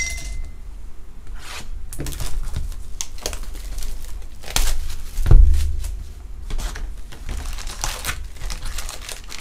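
Plastic wrapping and foil trading-card packs crinkling and tearing as a hobby box is unwrapped and its packs handled, with one dull thump about five seconds in.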